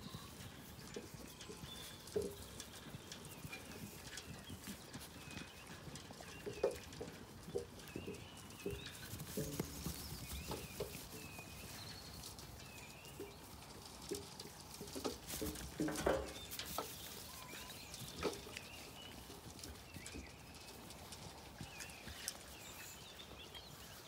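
Zwartbles sheep feeding at a metal trough: irregular knocks and clatter of muzzles and hooves against the trough, loudest about 16 seconds in. Birds chirp faintly behind.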